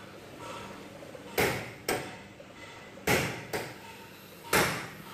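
Three pairs of sharp knocks, each pair a loud knock followed by a softer one about half a second later.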